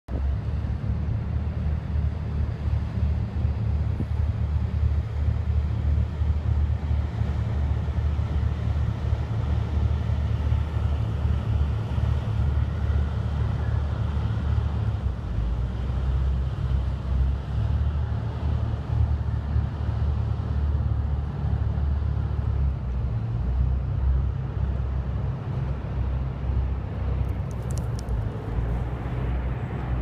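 Steady low outdoor rumble of city traffic and passing river-boat engines.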